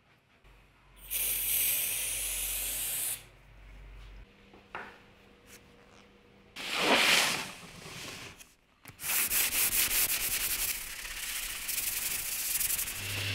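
Hand sanding a board surface with a sanding pad: quick back-and-forth rubbing strokes in the second half. Earlier there is a loud hissing scrape lasting about two seconds, starting about a second in, and a shorter one near the middle.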